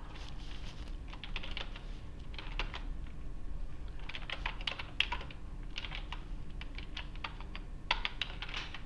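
Computer keyboard typing in short bursts of rapid keystrokes, separated by pauses of about a second.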